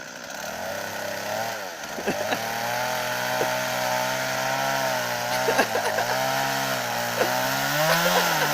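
Two-stroke chainsaw running, growing louder in the first two seconds, its engine pitch rising and dipping several times as the throttle and load change.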